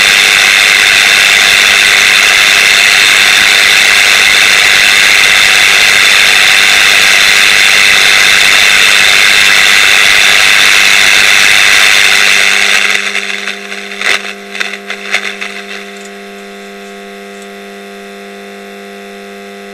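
The loudspeaker of a Philips TX711 portable black-and-white TV gives out a loud, even static hiss. About two-thirds of the way through the hiss cuts off, with a few clicks, leaving a steady hum from the set, very loud for a TV.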